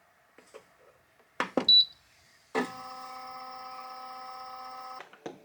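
Resin-printer wash-and-cure station being loaded and started: a few light clicks and two loud knocks, a short high beep, then the unit running with a steady hum for about two and a half seconds before it cuts off.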